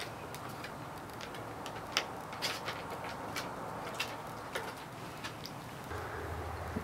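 Dogs' claws clicking on wooden deck boards as they walk, in short, irregular ticks.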